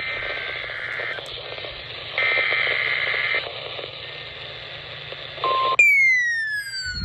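NOAA Weather Radio SAME header data bursts heard through radio static: two raspy, roughly one-second bursts of digital tones about a second apart, opening a Required Weekly Test. Near the end a brief steady tone sounds, then the static cuts out and a loud tone slides steadily downward in pitch.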